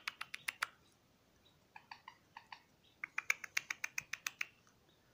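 Cockatiel in a wire cage tapping or clicking its beak in quick runs of sharp clicks, about eight a second: a short run at the start, another around two seconds in, and the longest run from about three seconds in.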